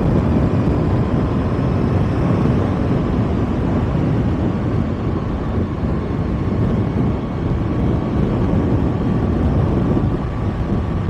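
Kawasaki ZX-6R inline-four running steadily on the move, mixed with wind rushing over the bike-mounted mic.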